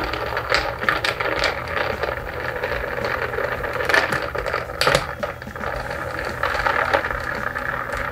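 Bar spoon stirring ice in a rocks glass: a continuous rattling clink of ice against glass, with a few sharper clinks about four and five seconds in.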